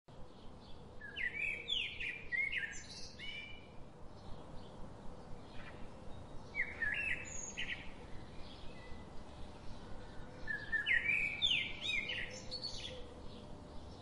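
A songbird singing three phrases of quick chirping notes, about a second in, around six and a half seconds and again near eleven seconds.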